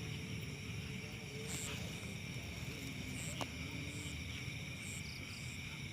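Night insects, crickets among them, chirring in several steady high tones. Short higher chirps repeat about once a second over a low rumble. A single click comes about three and a half seconds in.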